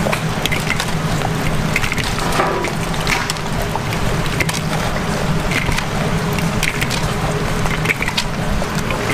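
Two wooden spatulas scraping and knocking against a large pan in irregular strokes as sauce-coated fried chicken is tossed, over a steady low hum.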